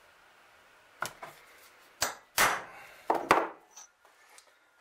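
Hammer-like strikes on metal plates held in a bench vice: about six sharp knocks with a brief ring, the loudest near the middle and about three quarters of the way through.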